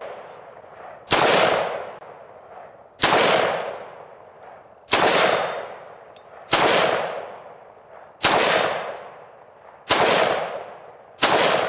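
AR-15 rifle in .223 fitted with a standard A2 birdcage flash hider, firing seven single shots about one every two seconds, each trailing off in a long echo.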